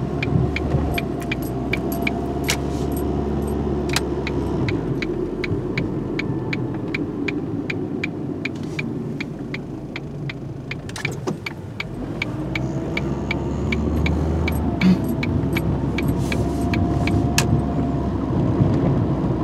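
Car interior while driving: the engine and road noise run steadily, with a turn signal ticking about three times a second until near the end.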